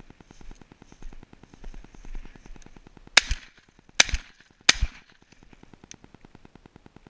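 Shotgun fired three times in quick succession, the shots under a second apart, with spent shells ejecting between them.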